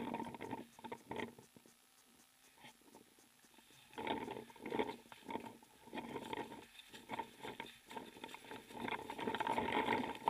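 Footsteps through dry fallen leaves and twigs, with rustling of clothing and gear. They come in irregular bunches of short crackles, with quieter pauses, and are loudest about four to six seconds in and again near the end.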